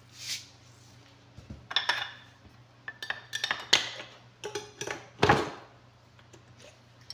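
A spoon and ingredient containers clinking and knocking in a series of short, irregular clinks while dry ingredients are measured into a mixing bowl, the loudest knock about five seconds in.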